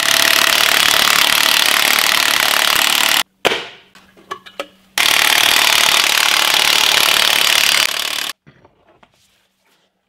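Cordless impact wrench hammering lug nuts tight on a truck wheel, in two runs of about three seconds each, with a few light clicks between them.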